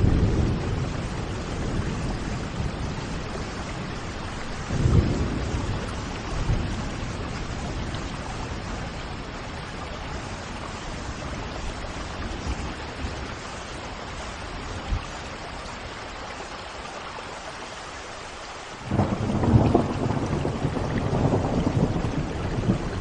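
Thunderstorm: steady rain falling, with low rolling thunder. The thunder swells briefly about five seconds in, and a louder roll starts abruptly near the end and keeps rumbling.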